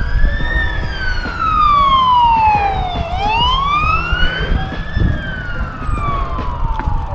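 A siren wailing, its pitch sliding slowly up and down, about one rise and fall every four to five seconds. Under it is the low rumble of wind on the microphone of a moving bicycle.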